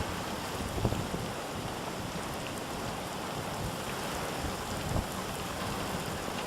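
Storm wind blowing as a steady rush of noise, with low thumps of gusts buffeting the microphone about a second in and again near the five-second mark.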